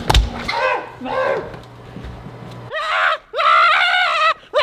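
A man's high-pitched wordless yelling: a few short cries at first, then longer held shrieks in the second half. A single thump sounds right at the start.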